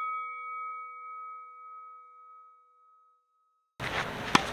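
Bell-like chime sound effect ringing out and fading away over about three seconds. After a brief silence, outdoor court sound returns, with a sharp crack of a tennis racket hitting the ball near the end.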